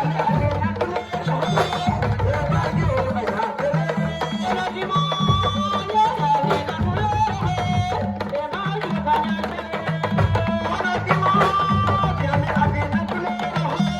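Music: fast, steady hand-drumming under a melody of held notes.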